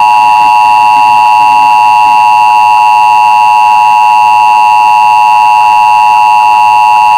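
Emergency Alert System attention signal: the steady, loud two-tone alert tone (853 Hz and 960 Hz together), broadcast over FM radio, signalling that an emergency alert message follows.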